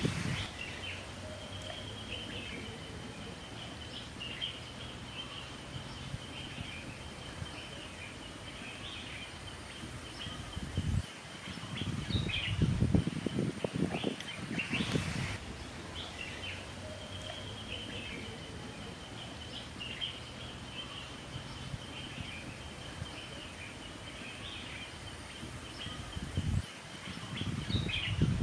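Outdoor rural ambience with birds chirping over a steady background hiss. A louder stretch of rustling and knocks comes about eleven seconds in and lasts a few seconds, and again near the end, as firewood and cookware are handled.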